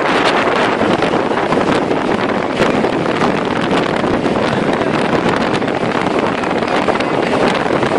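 Storm wind and heavy driving rain: a loud, steady rush, with gusts buffeting the microphone.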